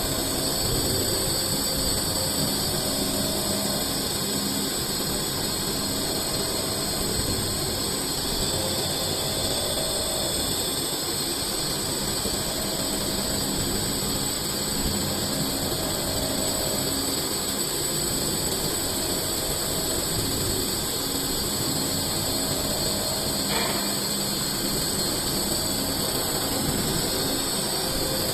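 CNC lathe running and cutting a metal cylinder into a ball: a steady machine noise with a bright hiss, and a faint pulse repeating about every three seconds.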